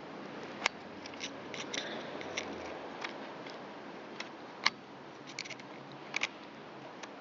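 Small screwdriver tip clicking and scraping against a piston's wire snap-ring retainer as it is pried out of the wrist-pin bore: scattered, irregular sharp metal ticks, the loudest about two-thirds of the way in.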